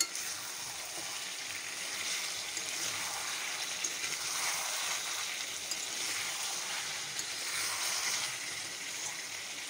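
Chicken curry sizzling in a pan on the stove: a steady frying hiss, with a few faint clicks.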